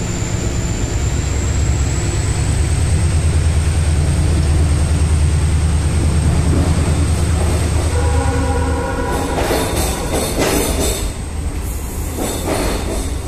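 Inside an Indian Railways general second-class coach on a running train: a loud, steady low rumble from the running gear. About eight seconds in a brief pitched tone sounds, followed by a few clattering knocks as the rumble eases.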